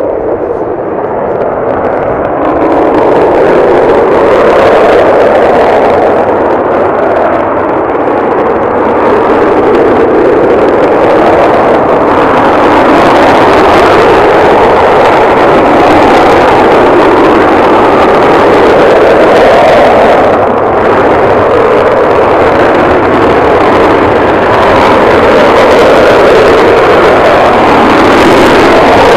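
B-1B Lancer's four afterburning turbofan jet engines spooling up to takeoff power over the first few seconds, then running very loud and steady with a slow wavering. By the end the afterburners are lit as the takeoff roll begins.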